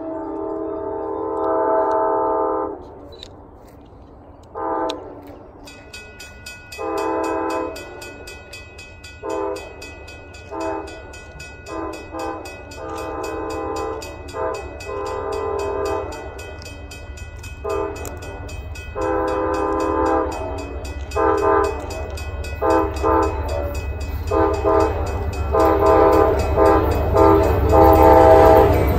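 Amtrak GE Genesis diesel locomotive's horn sounded as a horn show: a long blast, then a string of many short, uneven blasts that come faster toward the end. A grade-crossing bell rings steadily from about six seconds in, and the rumble of the approaching train grows near the end.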